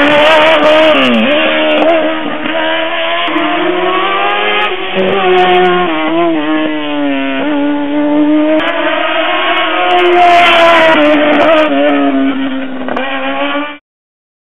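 Race car engine at high revs, accelerating hard, with pitch climbing and dropping back again and again through gear changes. It cuts off abruptly near the end.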